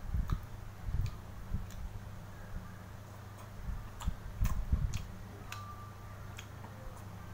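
A person eating fish cakes: chewing and mouth sounds with scattered sharp clicks and taps, some bunched together about four to five seconds in, over a steady low hum.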